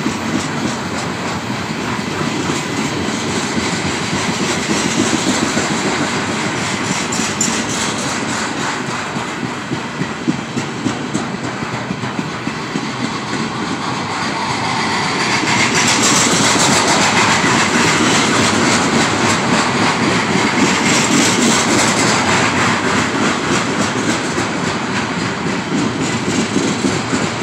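Freight train's tank cars and other cars rolling past: a steady rumble of wheels on rail with rapid clicking over rail joints. It grows louder and hissier for several seconds past the middle, then eases a little.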